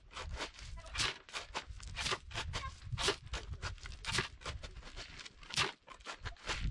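Irregular crunching and scraping of stones and gravel, about three to four sharp strokes a second, over a steady low rumble.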